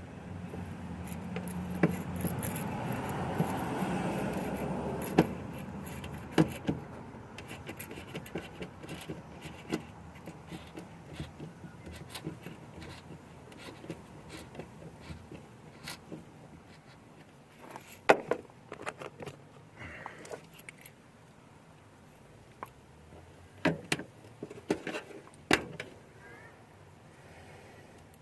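Small metal and plastic parts inside a car door being handled: a steadier scraping, working noise for the first few seconds, then scattered clicks, taps and light rattles, with a few sharper knocks about 18 seconds in and again near the end.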